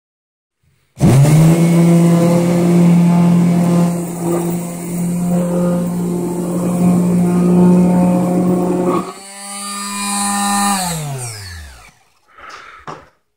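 Milwaukee electric palm sander switched on about a second in, its motor running with a steady hum under the rasp of the pad on a wooden board. About nine seconds in the rasping stops and only the hum remains. The sander is then switched off, and the hum falls in pitch as the motor spins down and stops.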